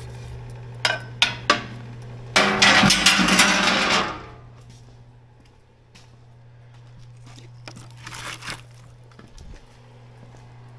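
A metal poker stirring coals in the steel firebox of a wood-burning furnace: a few sharp clanks, then about a second and a half of loud scraping, with a steady low hum underneath. Fainter scattered knocks follow near the end.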